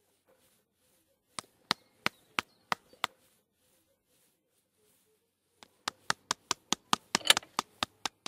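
Sharp knocks struck one at a time: about six at roughly three a second, then after a pause of about two seconds a faster run of about a dozen, bunched closest and loudest near the end.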